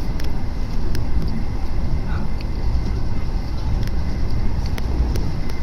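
Passenger express train running along the track, heard from on board: a steady low rumble of wheels on rail, with a few faint, irregular clicks.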